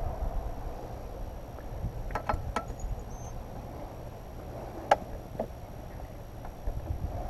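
Low wind rumble on the microphone with a few light clicks as a T-handle hex key works at the motorcycle's rear grab-rail bracket bolts, a cluster of them a couple of seconds in and one sharper click about five seconds in.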